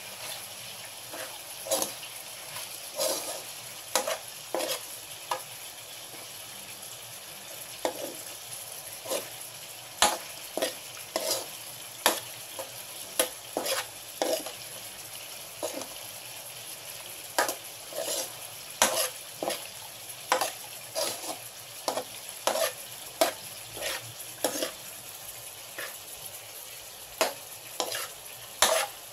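Shrimp and garlic frying in oil in a pan, with a steady sizzle, while a metal spatula scrapes and knocks against the pan in irregular strokes as the shrimp are stirred.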